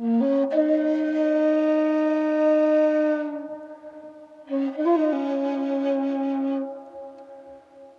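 Slow flute music with long held notes: one phrase of about three seconds, a pause, then a second phrase of about two seconds.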